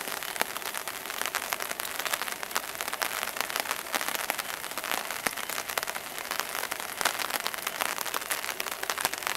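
Steady rain pattering on a nylon tarp overhead, a dense run of small drop ticks.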